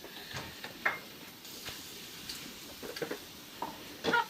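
Sporadic light clicks and knocks, with a sharp click about a second in and a short louder cluster of sounds near the end.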